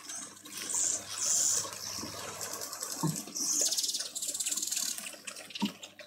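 Three bursts of a high, fast-pulsing buzz, the longest from about three and a half seconds to five seconds in, over faint outdoor background with a couple of soft knocks.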